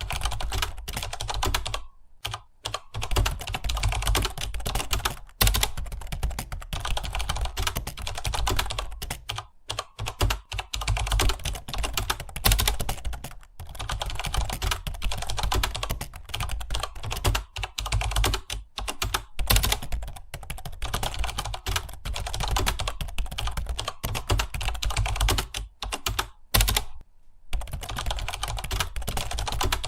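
Several computer keyboards typed on at once, a dense continuous clatter of key clicks with brief pauses now and then.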